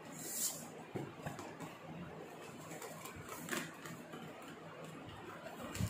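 Cardboard packaging being handled and opened: cardboard sliding and scraping about half a second in and again past three seconds, with a soft knock near the end.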